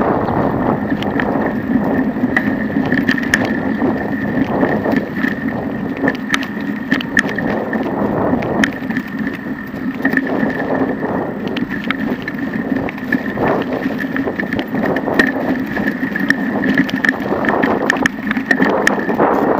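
Bicycle rolling over a cracked concrete-slab path, with irregular clicks and rattles as the wheels cross the slab joints and cracks, wind on the microphone and a steady hum underneath.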